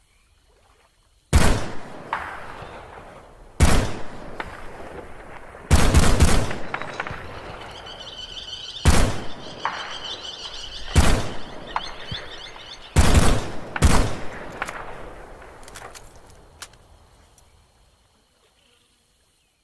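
Norinco NDM-86 semi-automatic rifle firing about eight shots at irregular intervals of one to three seconds, the last two about a second apart, each shot trailing off in a long echo.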